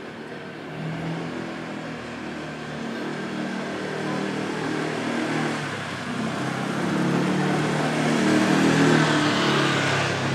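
A motor vehicle's engine and tyres growing steadily louder as it approaches along the street, loudest near the end.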